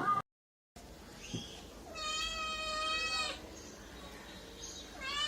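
Domestic cat meowing: a faint short call about a second in, then one long drawn-out meow lasting over a second, and another meow starting near the end.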